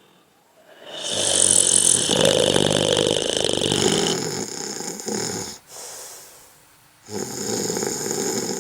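A person snoring: one long loud snore of about four seconds, a short fainter breath out, then a second loud snore starting near the end.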